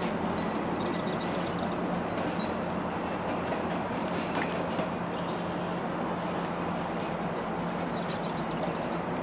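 GO Transit diesel commuter train running through a rail junction: a steady rumble with a constant hum.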